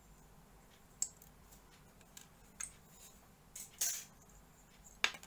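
A handful of sharp clicks and clacks of hard plastic as a plastic model kit's runner and small parts are handled and set down, the loudest a little before four seconds in.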